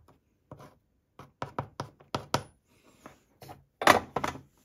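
Irregular sharp knocks and taps, about a dozen, as a bar of white metal solder is stabbed with a chisel-tipped soldering iron to break off small solder nuggets. The loudest knocks come near the end.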